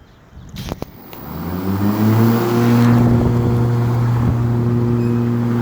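Ryobi 480e electric riding mower's motors starting up: a couple of clicks, then a whine that rises in pitch as the motors spin up and settles into a steady hum.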